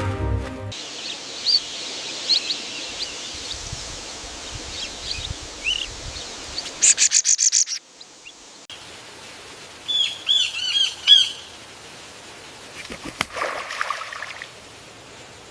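Wild birds chirping and calling over a faint outdoor hiss. About halfway through comes a quick run of about eight sharp, high notes, and a little later a short bout of up-and-down whistled calls.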